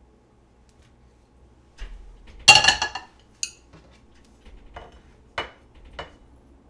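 A coated frying pan set down on the metal grate of a gas hob, clattering and ringing for about half a second, followed by a short click and then three lighter knocks.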